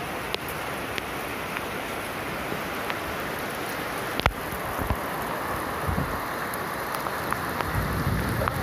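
Heavy rain pouring steadily on a flooded street, a constant hiss with scattered sharp taps, the loudest about four seconds in. A low rumble builds near the end.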